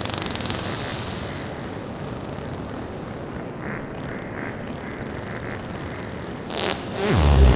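Ambient electronic texture made from fart samples run through tape-style echo and reverb in a VCV Rack patch: a dense, steady, rumbling wash. Near the end a louder, low, pitched sample sound comes in and bends in pitch.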